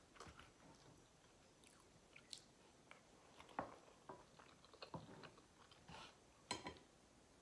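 Soft chewing of creamy pasta, with faint wet mouth clicks and smacks scattered through.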